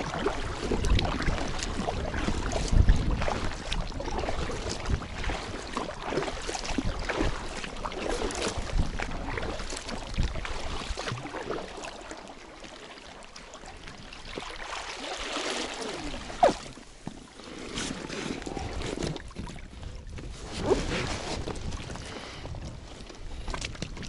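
Oars dipping and pulling through rippled river water as an inflatable boat is rowed, with splashes and occasional sharp knocks, over wind on the microphone.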